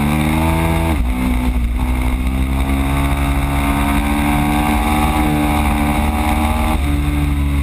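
Ducati Streetfighter's L-twin engine accelerating hard on track, its pitch climbing through the gears: a sharp drop for an upshift about a second in, a long steady climb, then another upshift near the end.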